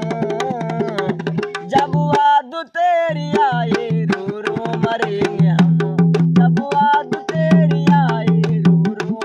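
Rope-tensioned dholak drum played by hand in a quick, steady rhythm, its bass head ringing with a low pitched boom under sharp treble slaps. A man's singing voice rises and falls over it. There is a short break about two and a half seconds in.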